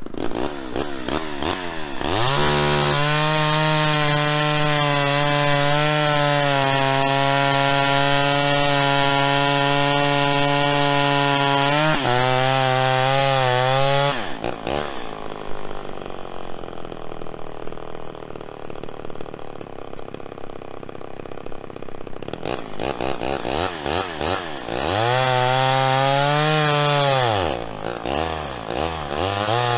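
Homelite Super XL Automatic two-stroke chainsaw revving up to full throttle and cutting through a log, its carburettor's high-speed needle freshly adjusted. After a long steady cut it drops back to idle about halfway through. It then revs up and cuts again in a shorter burst, and revs once more near the end.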